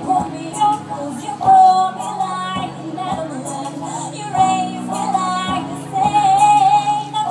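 A woman singing a pop song live into a microphone, amplified through a stage PA, over keyboard, bass notes and a steady drum beat.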